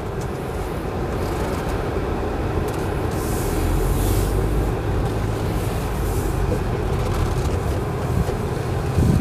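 Steady cabin noise of a Hyundai Stargazer MPV driving slowly, a low rumble of engine and tyres, with a short hiss swelling about three seconds in and fading a second or so later.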